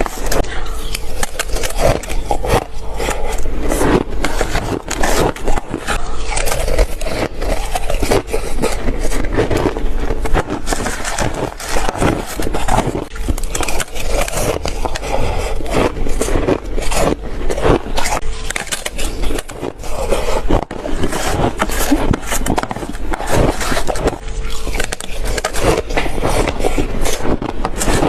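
Shaved ice being bitten and chewed close to the microphone: dense, continuous crunching and crackling.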